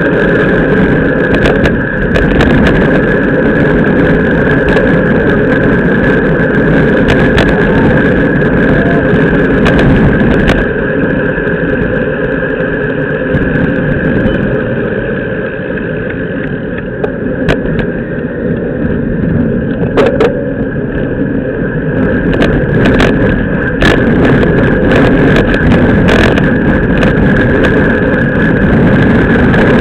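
Wind rushing over a bicycle-mounted action camera and road bike tyres running on asphalt, with scattered sharp knocks and rattles from the bike. It eases a little about halfway through and picks up again.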